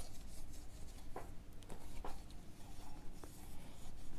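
Cloth rag rubbing and wiping a dirt bike's disc brake rotor clean, with a few brief clicks as the hand and wheel shift.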